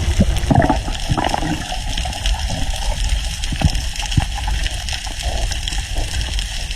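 Sea water sloshing and gurgling, with a steady low rumble and scattered small clicks and splashes.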